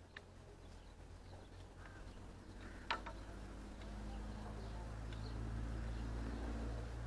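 A low droning hum that swells about halfway through and stops suddenly at the end, with a single sharp click about three seconds in and faint bird chirps.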